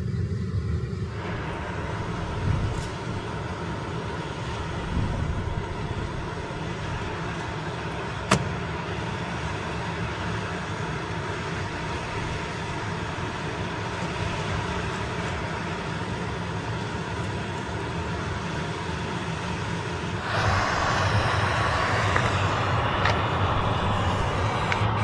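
Steady road and engine noise heard from inside a moving Honda N-VAN kei van, with one sharp click about 8 seconds in. A louder hiss joins abruptly about 20 seconds in.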